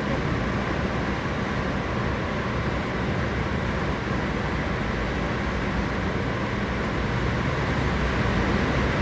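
Steady running noise of a moving passenger train heard from inside the car: an even rumble with no separate knocks or clicks, growing slightly louder near the end.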